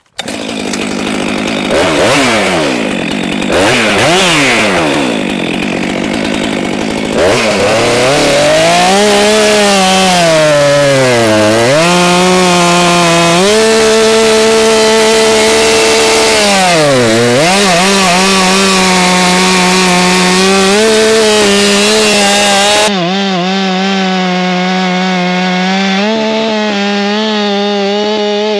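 Small chainsaw revved in quick bursts, then held at high revs cutting through a large pine log, its engine pitch dipping briefly twice as the chain loads up in the wood.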